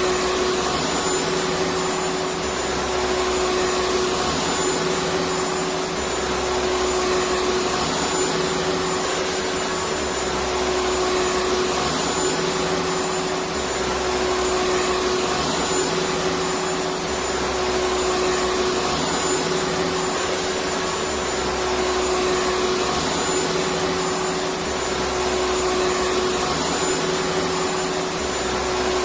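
Vacuum cleaner running steadily: a continuous rushing noise with a steady hum, swelling slightly every three to four seconds.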